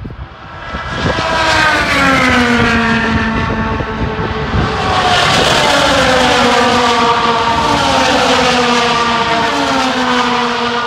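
IndyCars' 2.2-litre twin-turbo V6 engines at racing speed passing one after another. Each engine's pitch drops as the car goes by, the next one following a few seconds later.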